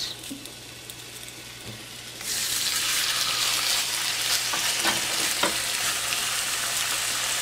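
Slices of chile-marinated beef sizzling in hot oil in a skillet as they are laid in. The sizzle starts suddenly about two seconds in and then holds steady.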